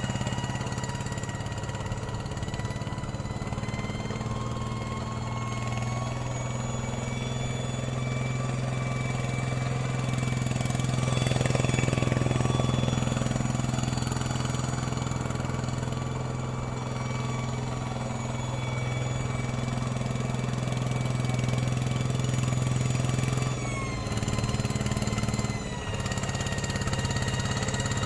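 Hand tractor engine running steadily as it levels mud in a flooded rice paddy, its pitch sagging briefly twice near the end before picking up again.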